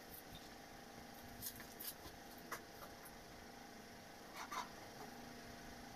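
Pen scratching on paper in a few short, faint strokes, the loudest pair about two-thirds of the way in, over a faint steady hum.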